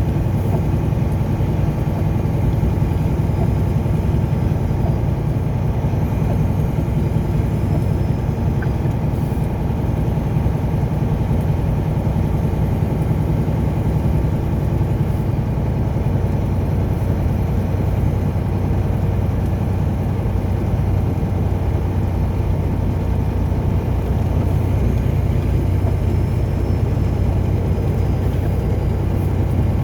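A car being driven at steady speed: a continuous low rumble of engine and road noise that does not change.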